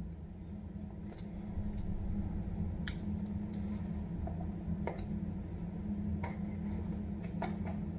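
Scattered small plastic clicks and taps as a GoPro action camera is handled and fitted into a shoulder-strap clip mount, over a steady low hum.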